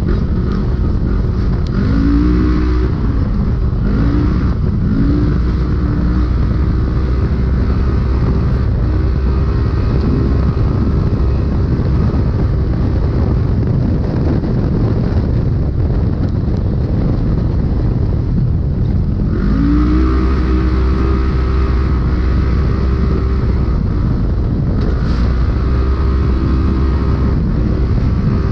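Polaris RZR UTV engine running hard at race pace, heard from inside the car. The engine pitch climbs several times as it accelerates: about two seconds in, again a couple of seconds later, and again about two-thirds of the way through. Under it runs a constant loud rumble of drivetrain and rough terrain.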